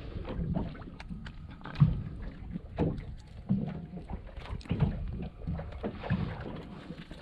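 Water slapping and knocking irregularly against the hull of a small fishing boat at sea, with low thumps and splashes and some wind.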